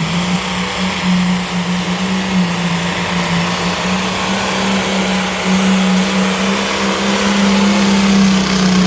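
Heavy pro farm pulling tractor's engine held at full power on a pull, a loud, steady note that sags slightly at the start, then holds and grows a little louder near the end.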